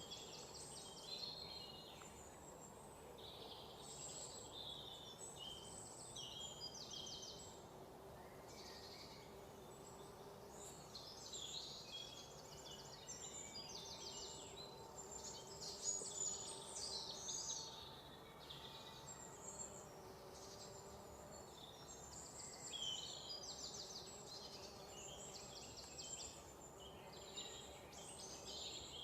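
Forest ambience: many small birds chirping and trilling in high, overlapping calls throughout, over a faint steady background hiss.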